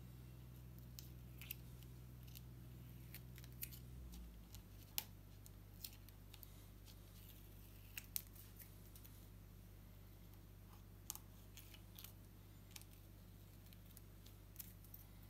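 Faint, sparse clicks and scratches of fingers picking at and rubbing a sand-art card, over a low steady hum.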